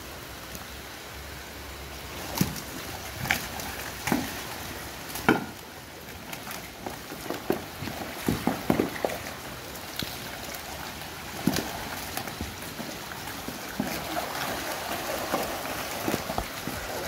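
A pen of crowded crocodiles being fed: scattered sharp knocks and splashes as thrown food lands and the crocodiles scramble and lunge for it, over a steady hiss of water.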